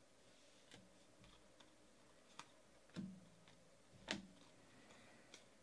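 Faint, scattered clicks and taps of baseball trading cards being shuffled through by hand, the loudest two taps about three and four seconds in.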